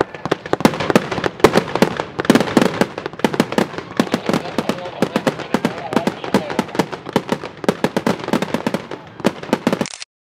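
Fireworks display: a dense, continuous barrage of sharp bangs and crackling from aerial shells and cakes. The sound cuts off suddenly near the end.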